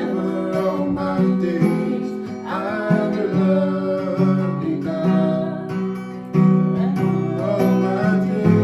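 Acoustic guitar strummed steadily, playing worship chords.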